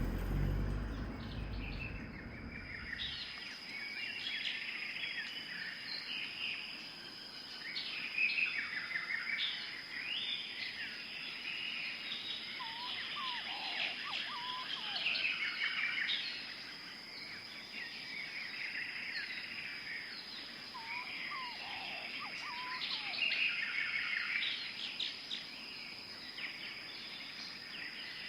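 Small birds chirping and singing in a busy, overlapping chorus over a steady high insect-like hum. A few lower, sliding calls come in midway. A low rumble in the first three seconds cuts off suddenly.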